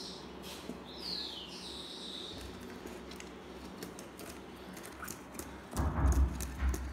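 A high bird call glides down in pitch about a second in, then holds briefly on one note, over light clicks and scraping. A loud low bumping and knocking comes near the end.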